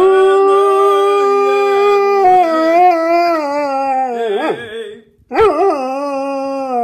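Labrador howling: one long held howl that sags in pitch near its end, then, after a short break, a second howl that wavers up and down in pitch.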